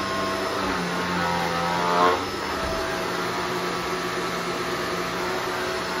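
Shark upright vacuum cleaner running with a steady hum as it is pushed over carpet tiles and a wood floor. About two seconds in there is a brief louder surge with a shift in pitch.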